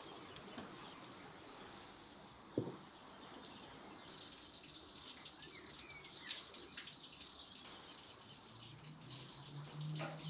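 Faint outdoor ambience with small birds chirping now and then. There is a single sharp knock about two and a half seconds in, and a low hum comes in near the end.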